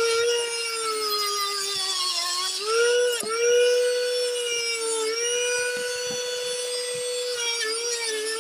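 Rotary tool spinning a small wire wheel brush against a rusty steel sickle blade, stripping the rust: a steady high motor whine over a scratchy rasp of bristles on metal. The whine sags in pitch under load between about one and three seconds in, then recovers and holds steady.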